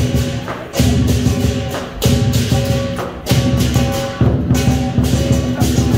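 Lion dance percussion: a big drum beaten continuously, with cymbals crashing about once a second over a ringing gong.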